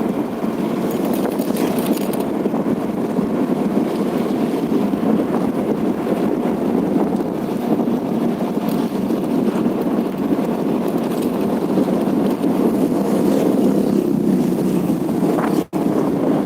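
Steady noise of a vehicle on the move, with wind rushing over the microphone; the sound cuts out for an instant about a second before the end.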